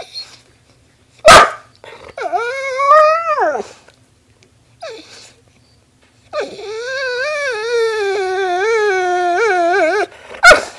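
A dog "talking" in drawn-out whining vocalizations: a short call that rises then falls a couple of seconds in, then a longer wavering, warbling whine of about four seconds. A sharp knock a little over a second in is the loudest sound, and another comes near the end.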